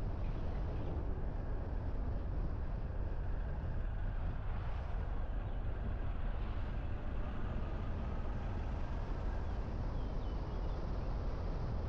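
Steady low rumble of a car driving: engine and tyre noise at an even level.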